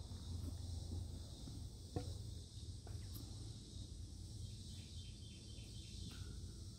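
Summer woodland insects buzzing steadily in a high chorus over a low steady rumble. An aluminium soda can is set down on the table with a light knock about two seconds in.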